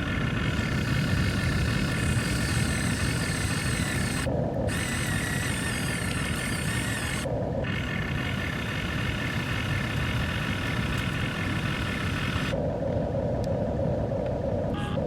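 Diesel engine of a backhoe or excavator running steadily with a low rumble, the sound changing briefly about four and seven seconds in and again for a longer stretch near the end.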